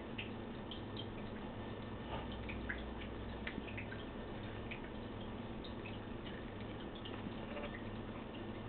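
Cat chewing corn off the cob: scattered small wet clicks and smacks over a steady low hum.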